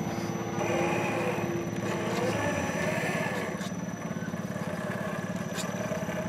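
Electric motor and geartrain of a 1/10-scale RC4WD Trail Finder 2 crawler whining as the truck crawls over rocks, the whine rising and falling with the throttle in the first few seconds. Underneath is a steady, rapidly pulsing low drone.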